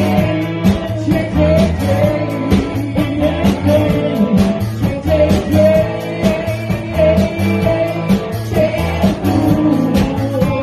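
Live rock band playing: electric guitar over bass and drums, with a singer's voice on top. The drums beat regularly and the bass line steps under them.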